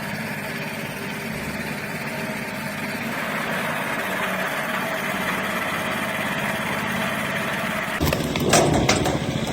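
Machinery running steadily with a constant engine-like hum. About eight seconds in, it changes abruptly to a louder, rougher machine sound with a few sharp knocks.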